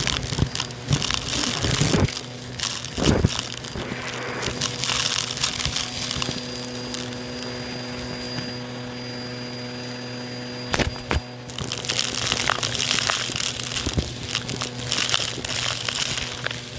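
Bissell vacuum running with a steady motor hum while grit, lint and small plastic debris crackle and crunch as they are sucked out of a shag rug. For a few seconds midway the crackling eases and a thin high whine holds, then the crunching resumes.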